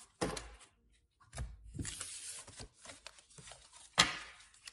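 Tarot cards being handled and shuffled: a rustle of cards sliding against each other among irregular light clicks and taps, with one sharp tap about four seconds in.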